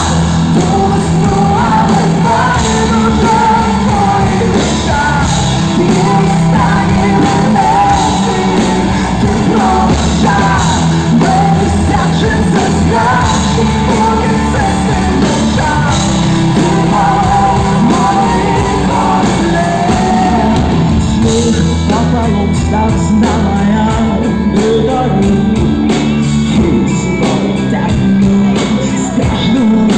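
Live rock band playing, with a woman singing the lead over electric guitar, drums and keyboards. About two-thirds of the way through the voice drops out and the band plays on with a crisp, even beat.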